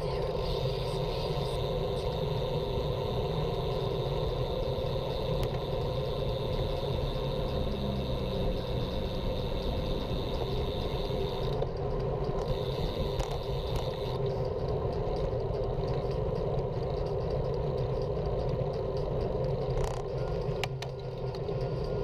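Steady wind and tyre rumble picked up by a camera mounted on a moving road bike, with motor traffic on the busy road, and a few light clicks near the end.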